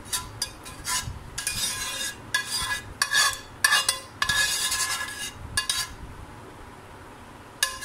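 Metal spoon scraping and clinking against a baking dish as thick cherry jam filling is spread over a pastry crust, in a run of short strokes with a lull near the end.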